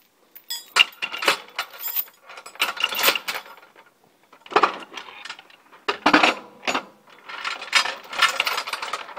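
Heavy steel logging chains clinking and rattling as they are handled, in about six short bursts of metal clatter.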